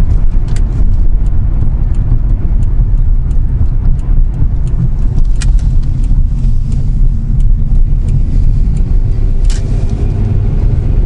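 Steady low rumble of a car driving at town speed, heard from inside the cabin: engine and tyre noise, with scattered faint ticks throughout.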